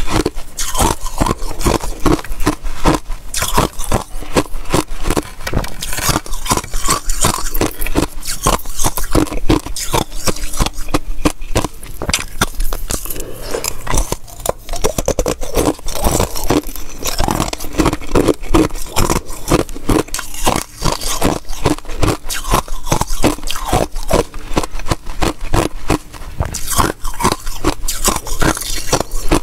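Pink basil-seed ice cubes crackling and cracking in rapid, irregular snaps as a slab of joined cubes is broken apart by hand and the ice is crunched.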